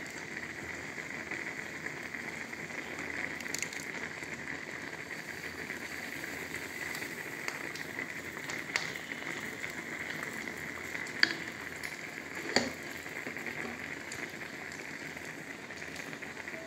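A pot of okra soup simmering, bubbling and sizzling steadily, with a couple of sharp clicks about two-thirds of the way through.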